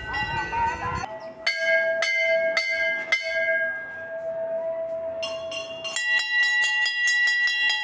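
Temple bells being rung, several metal bells of different pitches. There are strikes about two a second at first, one bell rings on for several seconds in the middle, and a quick run of strikes comes near the end.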